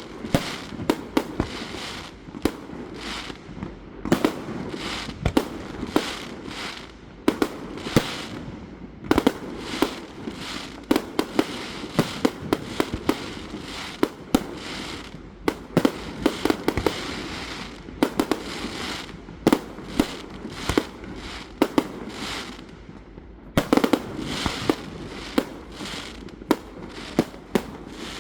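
A fireworks display: a rapid, irregular run of shell bursts and bangs, several a second, over steady crackling, with denser volleys in bunches throughout.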